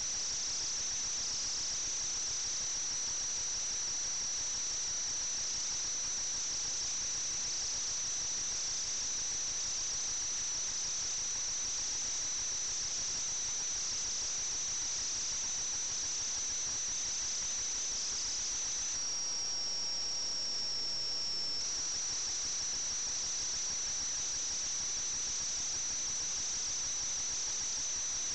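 A steady high-pitched whine over a constant hiss. The whine dips slightly in pitch for a few seconds past the middle, then returns.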